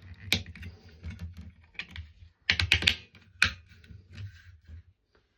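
Sharp clicks and snaps of electrical wires being pushed and clamped into a connector block, with a quick cluster of clicks about two and a half seconds in, over a low hum.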